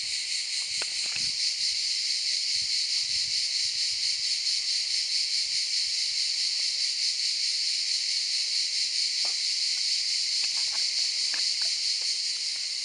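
Dense chorus of cicadas singing: a steady, high-pitched buzzing that does not let up.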